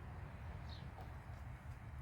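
A single short bird chirp about two-thirds of a second in, over a low steady rumble.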